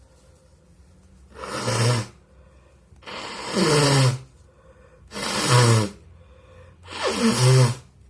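A person forcefully blasting air out through the nose four times, each blast under a second long, with a voice-like tone falling in pitch inside each one.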